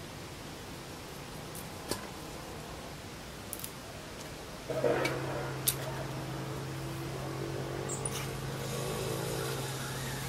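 A few faint snaps as herb stems are picked. About halfway through, an outdoor tap is opened and water runs into a bowl, with a steady low motor hum starting at the same moment.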